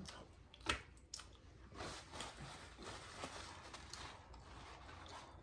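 A person chewing food close to the microphone, with one sharp crunchy bite about three quarters of a second in, then softer, irregular chewing.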